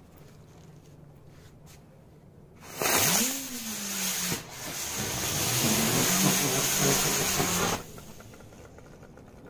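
Dancing Butterfly ground firework going off: its lit fuse fizzes faintly for about three seconds, then the charge catches with a loud hiss as it spins and jumps. The hiss lasts about five seconds, with a low pitch that rises and falls near its start, and cuts off suddenly.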